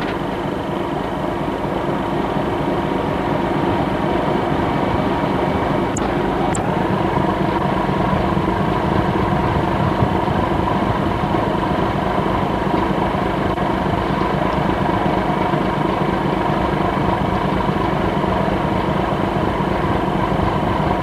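Ship's engine and machinery giving off a steady drone at sea, constant in pitch and level.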